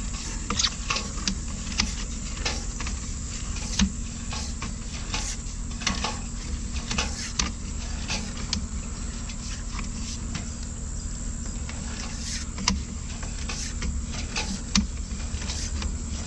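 Drain jetter's engine running with a steady low hum, with irregular sharp clicks and ticks scattered over it.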